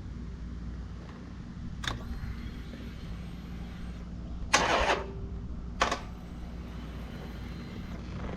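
Harley-Davidson Iron 1200's starter trying to crank on a run-down battery: a click about two seconds in, a brief half-second burst of cranking near the middle, then another click, and the engine does not catch. A steady low hum runs underneath.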